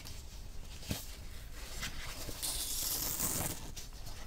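Beeswaxed thread being drawn through a sewing hole in a folded paper signature, a hiss lasting about a second from about two and a half seconds in, with paper rustling and a light tap about a second in.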